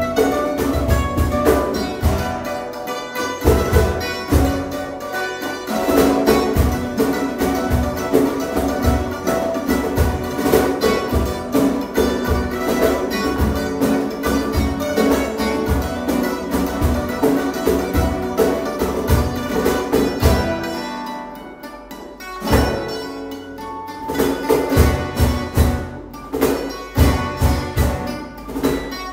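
Instrumental Andean–flamenco rumba played on a bandolín, nylon-string guitar and cajón, with plucked melody over strummed chords and a steady cajón beat. About three-quarters of the way through, the playing thins out and drops in level for a moment, then the cajón and full trio come back in.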